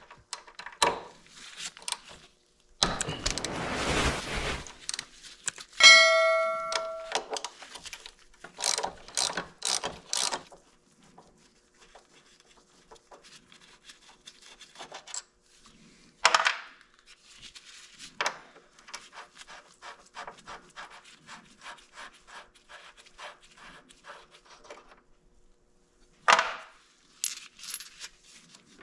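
Hex tools loosening a motorcycle's front brake caliper bolts: metal tools clink and rub, one brief metallic ring sounds about six seconds in, and a long run of quick light clicks goes on through the middle. Sharp knocks of metal come twice.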